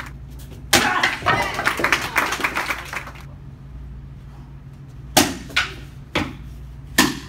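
Audience applause for about two seconds, then, after a short lull, four sharp cracks of hand strikes on held breaking boards in a taekwondo breaking test, the first and last loudest.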